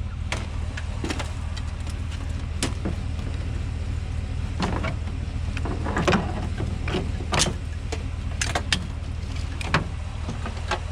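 A vehicle engine idles with a steady low hum, while scrap items are handled, giving a scattering of sharp knocks and clanks.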